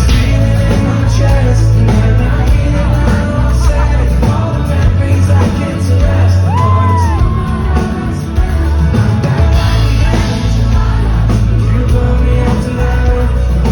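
Indie pop band playing live, with a lead singer over heavy, loud bass.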